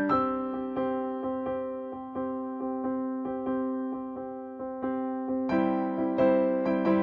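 Background music: a gentle electric piano melody with notes struck about twice a second, growing fuller and louder about five and a half seconds in.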